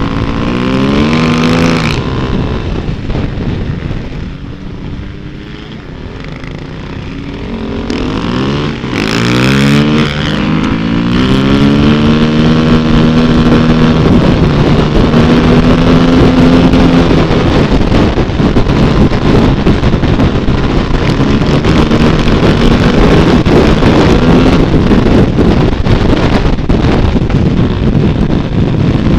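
Dirt bike engine heard from on the riding bike. It revs up near the start, eases off and goes quieter for a few seconds, then climbs in pitch through several gears from about eight seconds in and settles into steady running.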